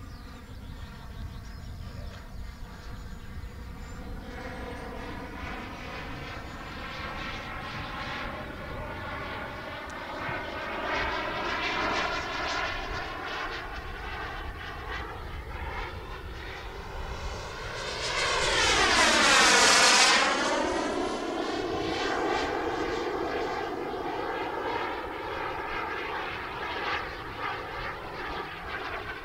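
Gas turbine of a large thrust-vectored RC sport jet in flight, whining steadily as it manoeuvres. About nineteen seconds in it grows loud and drops sharply in pitch as it passes close by.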